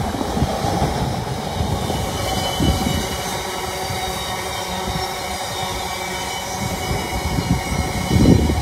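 GB Railfreight Class 60 diesel freight locomotive passing close by, followed by its train of hopper wagons rumbling over the rails, with heavy low thumps from the wheels; the loudest thump comes a little before the end.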